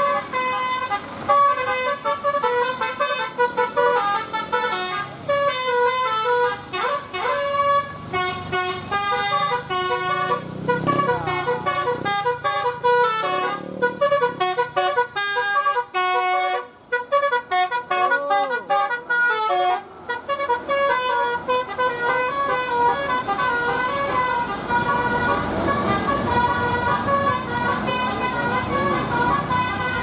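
Bus's Basuri telolet musical horn playing tunes: rapid runs of clear tones stepping from note to note, several notes a second, with a few sliding notes. It pauses briefly twice about two-thirds of the way through, then plays on.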